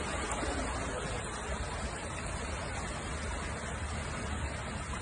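Steady rushing noise of rain and floodwater.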